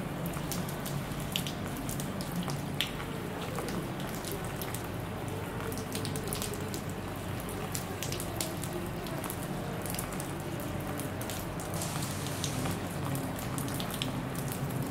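Water spraying from the fan jets of a water-fed pole brush onto shop window glass, hissing steadily and pattering, with many small drip and splash ticks. A steady low hum runs underneath.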